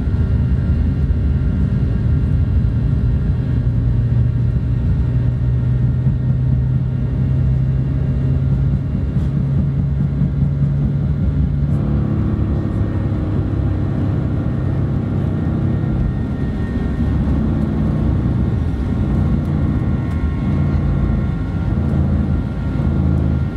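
Steady low rumble of a Boeing 737-900 heard from inside the cabin, with a few faint steady tones above it; the sound shifts about halfway through.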